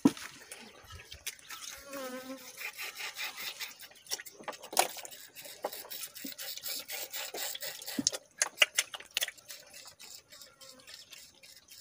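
Piglets chomping and slurping wet feed from a trough, with many sharp smacking clicks. An insect buzzes close by for a couple of seconds, about two seconds in.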